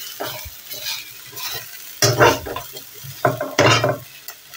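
Metal spatula scraping and stirring fries in a metal frying pan as they reheat on the stove, in irregular strokes over a light hiss; the loudest scrapes come about two seconds in and again near the end.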